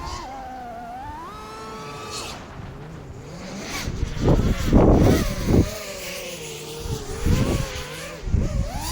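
A 5-inch FPV quadcopter's four brushless motors (T-Motor Velox 2207, 2550KV) and propellers whine, the pitch rising and falling as the throttle changes. Heavy gusts of wind rumble on the onboard camera's microphone about halfway through and again near the end.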